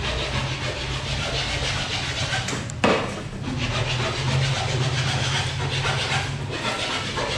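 Steady work-site background noise, a low hum under a hiss, broken by one sharp knock about three seconds in.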